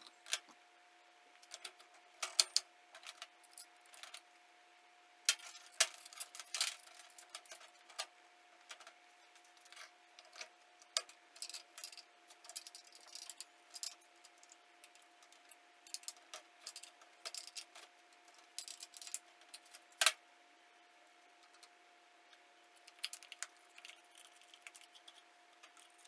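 Irregular clicks, knocks and light rattles of plastic and metal parts as a McCulloch Pro Mac 605 chainsaw is put back together by hand (guide bar, chain and covers fitted), over a faint steady hum.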